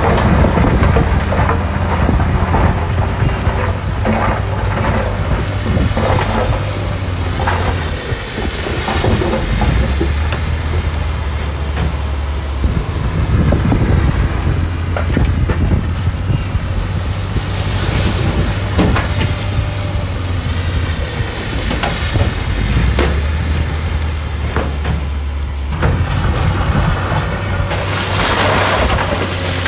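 Diesel engines of heavy earthmoving machinery running with a steady low drone that eases off twice and comes back. Many sharp knocks and scrapes of stone run through it, with a hissing swell near the end.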